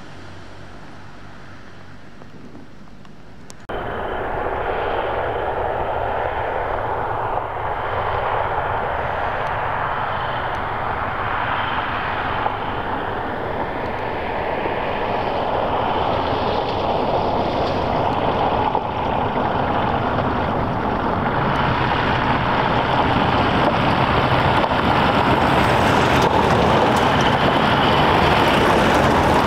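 Military Land Rover Defender utility vehicles driving on a gravel track, their diesel engines running steadily and their tyres crunching over the gravel. Faint at first, then suddenly much louder about four seconds in, and growing louder toward the end as a vehicle approaches.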